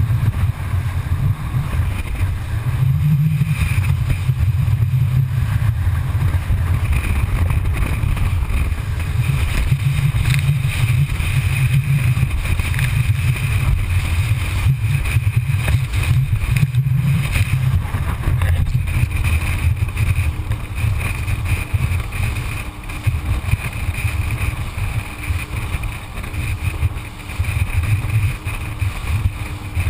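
Rigid inflatable boat running at speed: a steady, loud low rumble of engine, hull and rushing water and wind. It is muffled, heard through the camera's waterproof housing.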